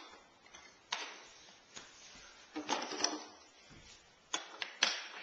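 Wooden toy train track pieces and track supports being handled and set down: a sharp knock about a second in, a short cluster of clacks a few seconds in, and two more knocks near the end.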